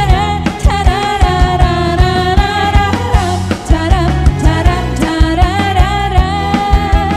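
Live band playing a Khmer dance song: a woman sings the lead into a microphone over drum kit, bass, electric guitar and keyboard, with a steady beat.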